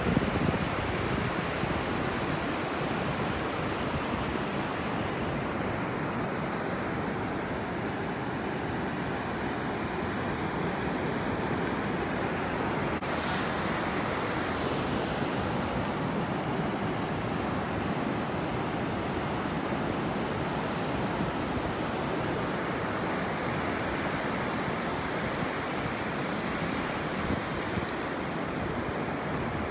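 Ocean surf washing onto a sandy beach: a steady, continuous rush of breaking waves that swells slightly now and then.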